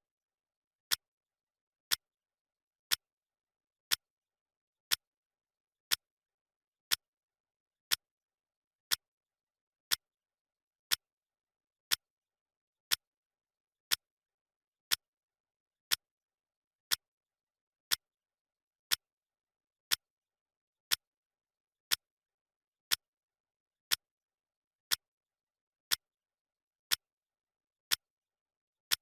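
Clock ticking, one sharp tick each second with silence between, marking off the seconds of a countdown timer.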